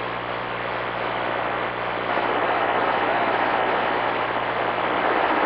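CB radio receiver hissing with static between transmissions, a steady rushing noise with a low hum underneath.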